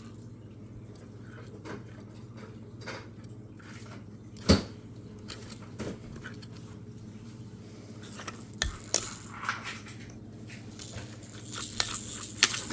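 Small plastic fidget cube being handled and knocked about by a toddler: scattered clicks and clacks of hard plastic, with one louder knock about four and a half seconds in and a quick run of clicks near the end.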